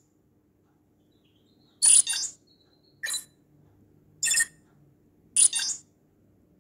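Omnitrix app's alien-select sound effect from a Galaxy Watch Active2's speaker: four short, bright electronic clicks about a second apart, two of them doubled, one for each step as the bezel is turned from alien to alien.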